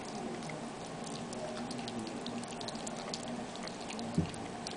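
Miniature pinscher puppy chewing a broccoli floret: many small wet, crunchy clicks and smacks, with a single low thump about four seconds in.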